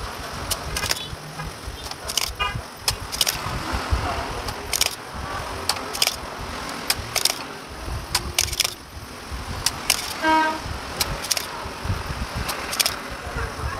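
Irregular sharp clicks and taps of hand tools and metal parts, from the final power transistors being removed from an amplifier's power board, over a low traffic rumble. A short vehicle horn toots about ten seconds in, with a briefer higher toot near the start.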